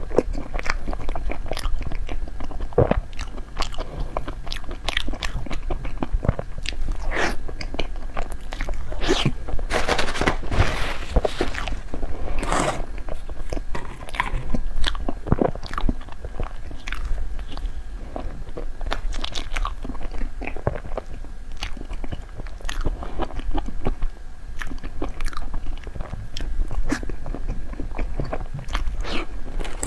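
Close-miked eating of snow-skin mochi desserts (xue mei niang): repeated bites and wet chewing with small crunches and clicks, busiest about ten seconds in.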